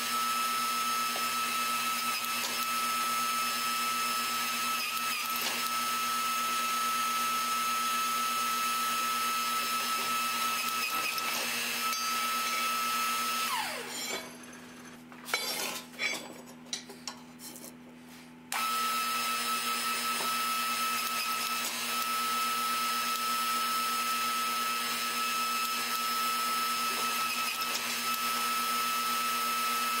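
A steady electric motor whine over a low hum from a running power hammer, with no distinct hammer blows. About halfway through the whine sinks in pitch and drops away for a few seconds, leaving a few light clanks, then cuts back in suddenly.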